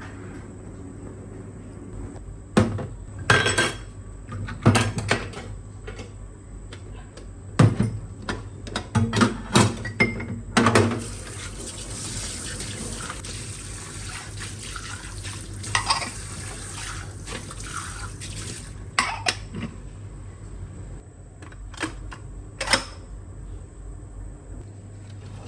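Dishes and utensils knocking and clinking at a kitchen sink, with a tap running steadily for several seconds in the middle.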